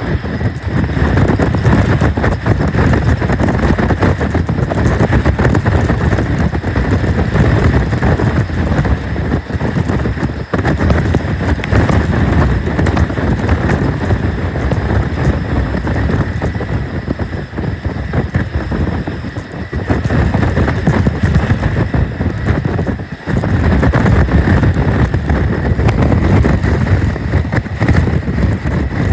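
Twin-engine jet airliner taking off, its engines at takeoff power: a loud, continuous rush with a faint steady high whine.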